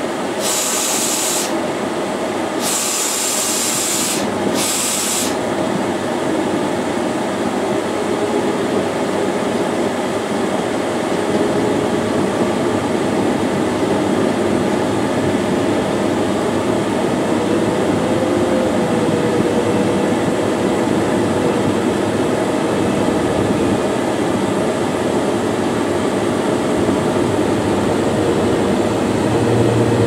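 A pothole patching machine running steadily, heard from inside the operator's cab. Three short bursts of hissing come in the first five seconds, and a faint wavering whine joins about halfway through.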